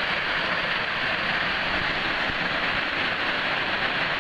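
Steady rushing water, a stream or waterfall, as an even hiss at a constant level.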